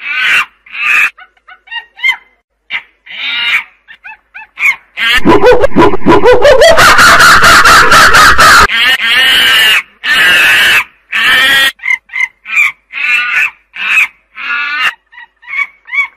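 Monkeys calling: a string of short, high squeaks and squeals, broken about five seconds in by one long, loud call that rises in pitch and lasts some three and a half seconds.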